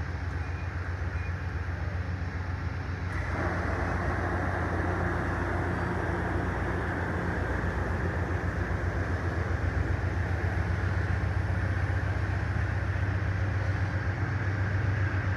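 Diesel train running past: a steady low engine throb under a broad rumbling noise that gets louder about three seconds in.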